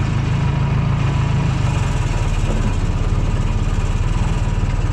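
Engine of a piece of heavy equipment running steadily, a loud, even low drone with no change in speed.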